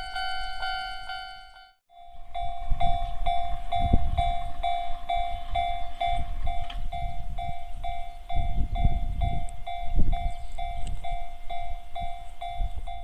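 Japanese railway level crossing warning bell ringing in regular strikes, about two a second, while a train rumbles over the crossing. Just under 2 s in, a different crossing's faster, higher-pitched bell cuts off abruptly before this one starts.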